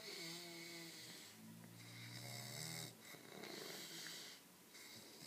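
A person snoring faintly: a higher snoring breath, then a lower, longer one, followed by a breathy exhale.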